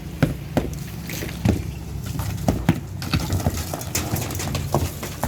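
Repeated sharp knocks and bangs of demolition work on a wall, struck at an irregular pace of about two or three blows a second, over a steady low hum.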